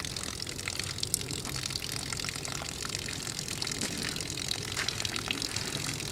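Steady low outdoor background rumble with a few faint ticks and rustles; no shot or other loud event.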